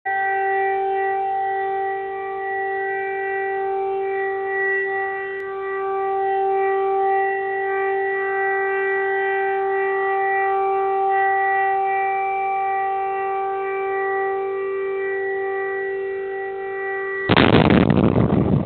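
Air-raid siren sounding a steady, unwavering multi-tone note. About seventeen seconds in, a sudden loud blast cuts across it: an explosion from a strike.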